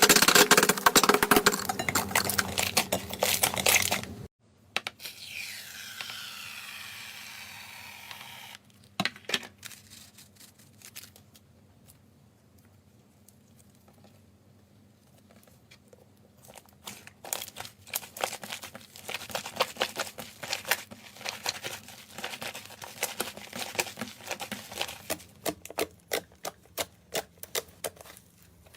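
Slime being pressed and worked close to the microphone, giving dense crackling and popping clicks. After about four seconds the crackling stops and a steady hiss with a few falling whistling tones follows, then a quieter stretch with scattered clicks, and the crackling comes back and grows busier through the second half.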